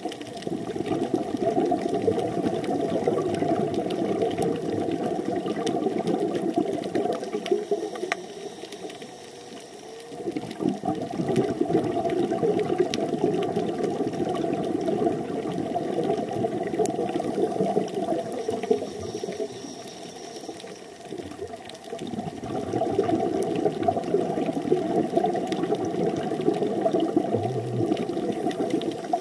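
Underwater bubbling and gurgling, typical of a scuba diver's regulator exhaust bubbles, coming in long spells with two quieter breaks, about 9 and 21 seconds in. Faint scattered clicks sound through it.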